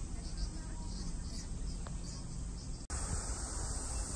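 Outdoor summer ambience: insects chirping in short repeated calls over steady background noise, cut off abruptly about three quarters of the way through and replaced by a slightly different, hissier background.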